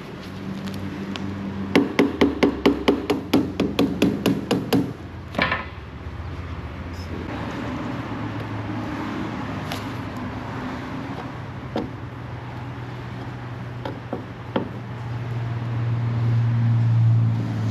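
A hammer rapping metal in a quick run of about a dozen blows, roughly four a second, then a few scattered knocks, over a steady low hum that grows louder near the end.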